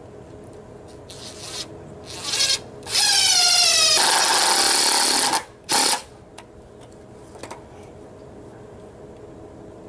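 Cordless DeWalt drill boring into a pine 2x4: two short trigger pulls, then a longer run whose motor whine rises as it spins up before the bit bites into the wood, and a last short burst about six seconds in.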